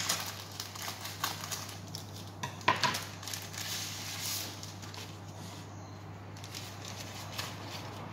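Paper packaging crinkling and rustling as it is handled, with a few sharp crackles in the first three seconds and quieter rustling after, over a low steady hum.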